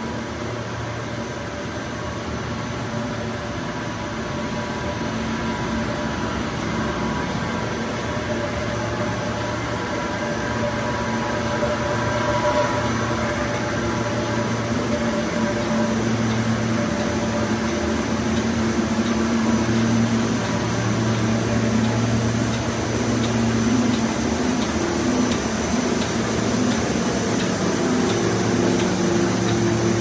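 Steady industrial drone of a running continuous furnace plant and its exhaust fans, a noisy rush with a low hum running through it, growing louder over the first dozen seconds and then holding.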